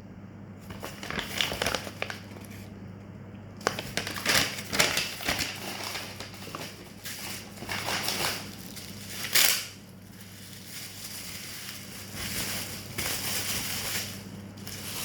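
Packaging being handled and unwrapped: irregular crinkling and crushing of plastic and paper wrapping, with louder crackles about four seconds in and again near the middle, over a steady low hum.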